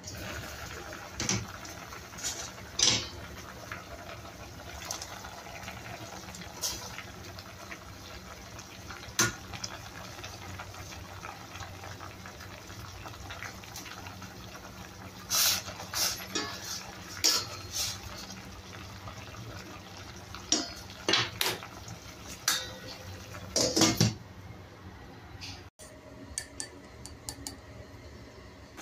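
Soup boiling in a stainless steel saucepan, with scattered clinks and knocks of the glass lid and utensils against the pot, busiest in the second half.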